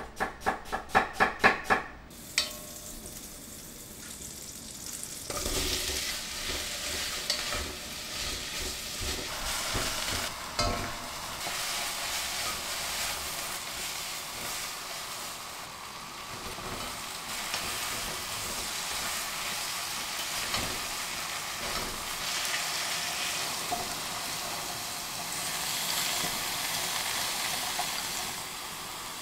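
A knife slices onions on a cutting board, a quick run of sharp chops about four a second for the first two seconds. From about five seconds in, sliced onions sizzle and crackle as they fry in a pot, stirred with a wooden spoon until they brown.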